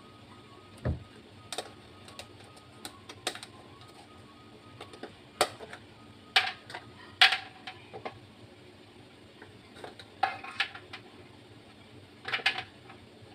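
Small clear plastic cups being pulled off a stack and set down on a perforated aluminium steamer tray: irregular light clicks and knocks of plastic on plastic and metal, with a dull thump about a second in.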